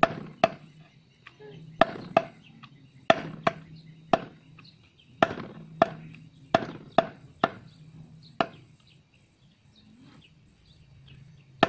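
A heavy knife chopping flesh on a wooden tree-trunk chopping block: about a dozen sharp chops at an uneven pace, stopping about three-quarters of the way through.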